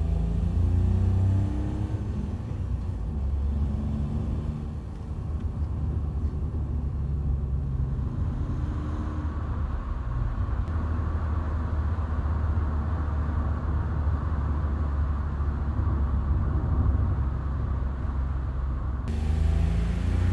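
Car driving on a road: a low engine drone under tyre rumble, with the engine pitch climbing as it accelerates about a second in and again near the end.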